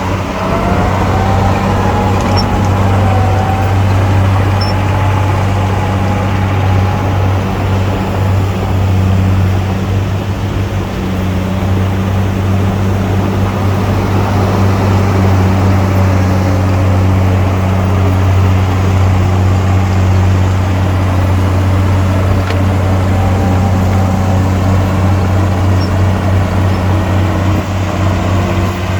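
Heavy machinery's diesel engine running steadily, a constant low drone with a fainter whine above it that drifts up and down in pitch.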